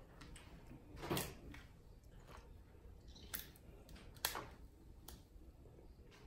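Crab leg shells being snapped and pulled apart by hand: a few sharp, scattered cracks and clicks, the loudest about a second in.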